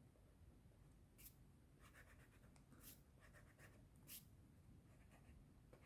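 Faint, scratchy strokes of a colored pencil on sketchbook paper, a handful of short strokes with pauses between them.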